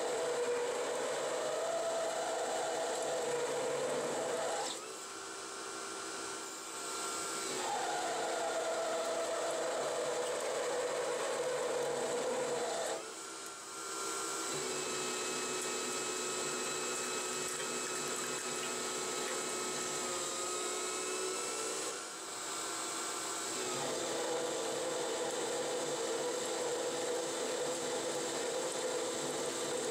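Harbor Freight 9x20 benchtop metal lathe, CNC-converted, turning a bar with a carbide insert: a steady motor and drive whine over the hiss of the cut. The cuts are heavy enough to pull the spindle down from 700 to about 580 rpm. The tone shifts three times where separate passes are joined.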